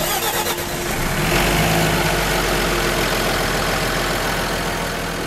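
A sharp click as a start button is pressed, then a snow groomer's heavy diesel engine starts up, swells over the first second or so and runs steadily.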